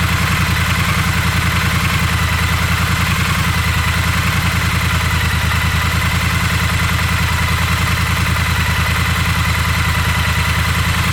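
Triumph Bonneville T100's 900 cc parallel-twin engine idling steadily, its exhaust note pulsing evenly.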